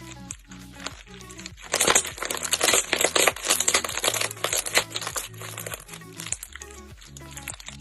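Slime being squeezed and pressed with the hands, a dense crackling of many small pops that starts about two seconds in and lasts about three seconds. Soft background music plays throughout.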